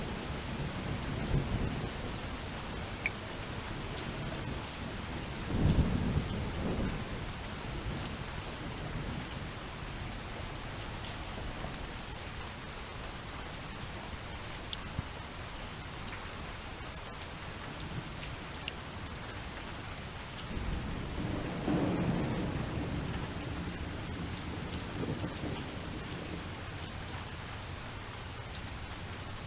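Steady rain on a surface with rolls of thunder: one low rumble about six seconds in and another about three-quarters of the way through.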